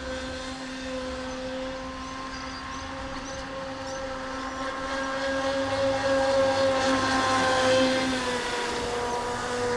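Proboat Supersonicwake 48 RC boat's Scorpion 4035 800kv brushless outrunner motor running at speed with a steady whine. It grows louder as the boat comes close, and its pitch dips slightly as it goes by about eight seconds in.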